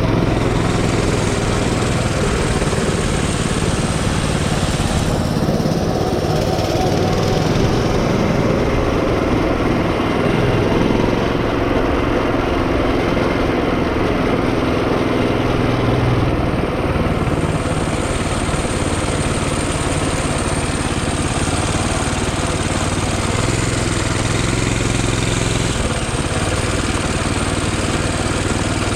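Mini bike's small single-cylinder four-stroke engine running under way, its pitch rising and falling a little as the throttle changes.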